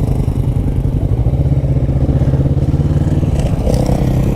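Kawasaki Vulcan S 650's parallel-twin engine running at low speed as the motorcycle rolls along, a steady low throb.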